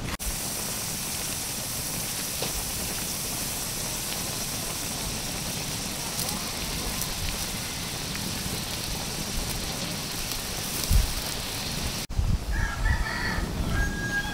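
Steady hiss with a few faint crackles from a wood fire burning in a metal drum under a steaming bamboo cooking tube. It cuts off suddenly about twelve seconds in.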